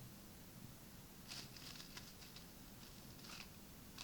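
Near silence: room tone with a few faint, short rustles.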